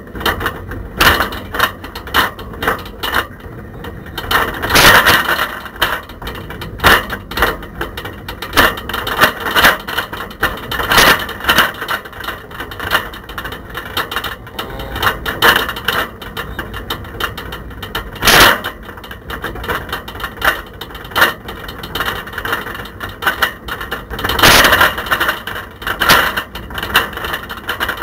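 A camera rattling and knocking in a bicycle's basket as the bike is ridden, with irregular clacks several times a second and louder knocks now and then. Really rattly and noisy.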